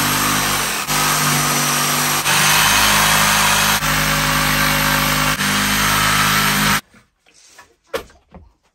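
Corded jigsaw running and cutting through a wooden board, a steady motor hum under the blade's rasp. It stops suddenly near the end, followed by a few light knocks of wood being handled.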